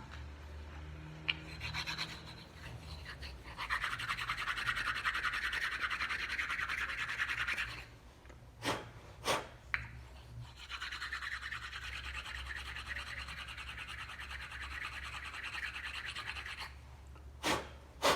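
Rapid scrubbing in two long stretches of about four and six seconds, with a few short knocks between them and another near the end.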